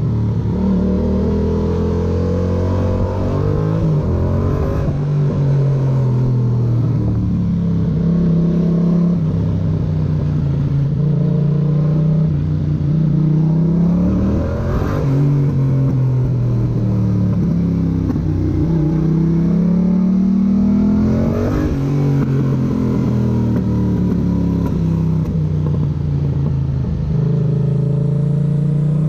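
Yamaha MT-07's 689 cc parallel-twin engine running and revving, its pitch climbing and dropping back again and again, with sharp breaks about halfway through and again about two-thirds through.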